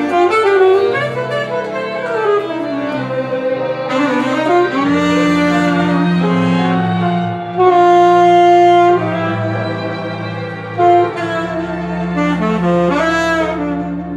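Saxophone playing a slow melody over a string and bass accompaniment, holding a long note about eight seconds in.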